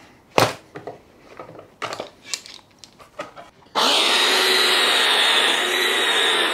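A few short knocks and clunks on a workbench, then about four seconds in, a belt sander clamped upside down as a bench sander runs steadily and loudly while a piece of plywood is sanded on it.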